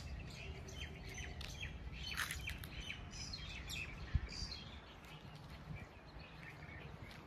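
Small birds chirping, many short high chirps coming one after another over a low outdoor rumble, with a single thump about four seconds in.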